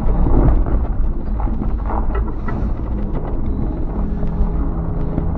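A vehicle driving slowly over a rough, icy dirt trail, heard from inside the cab: a steady low rumble with scattered knocks and rattles as it rides over ruts.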